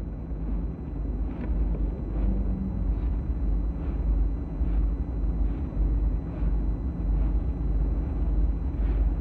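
Steady low rumble and hiss of an old, noisy recording, with faint ticks a little more than once a second.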